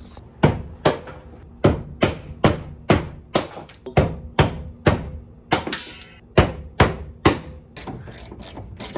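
Hammer striking a chisel, about fifteen sharp blows roughly two a second, breaking off stuck fasteners on a car's rear end. Near the end, a ratchet wrench clicking quickly.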